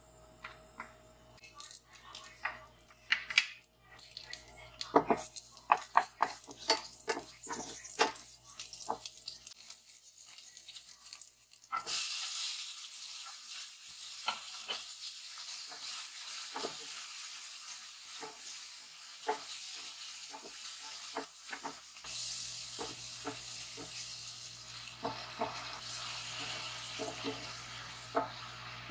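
Kitchen clatter of utensils with sharp knocks and taps, then about twelve seconds in food starts sizzling in a hot pan, a steady hiss that runs on with utensil taps over it.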